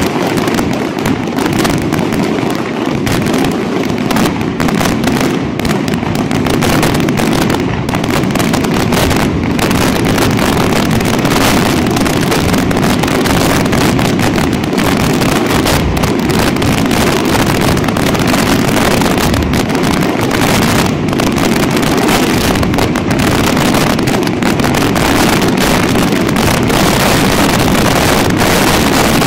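A dense barrage of aerial firework shells bursting in rapid succession, the reports crowding into a continuous rumble: the closing barrage of a fireworks display. Separate bangs stand out in the first third, then merge into an unbroken roll.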